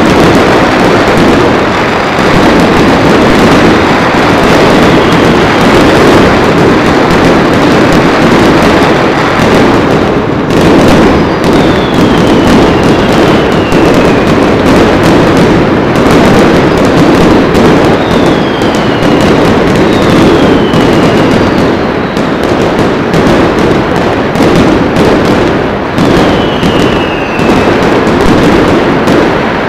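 Dense New Year fireworks and firecrackers going off all over a city, a continuous din of bangs and crackling. Several short falling whistles from whistling fireworks cut through it in the second half.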